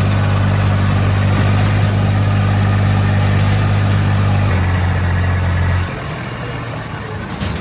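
Farm diesel engine running at a steady speed, a loud deep hum that thins about four and a half seconds in and stops near six seconds, leaving a noisy mechanical rumble.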